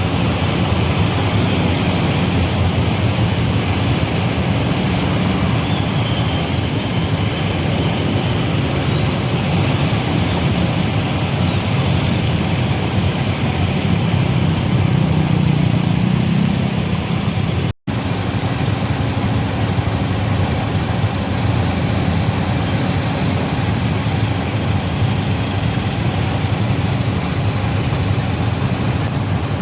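Steady city road traffic: car and motorbike engines and tyre noise going on without a break. The sound cuts out for an instant about 18 seconds in, then carries on the same.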